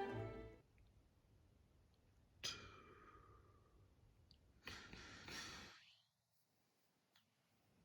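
Faint sighing breaths from a person, one about two and a half seconds in and a longer one near the middle, with near silence around them.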